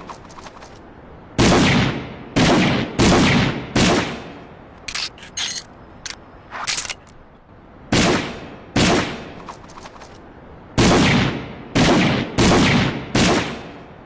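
Colt Detective revolver firing: four shots at an even pace, then a run of light metallic clicks from the action, two more shots, and a final string of four evenly spaced shots. Each shot is a sharp crack with a short echoing tail.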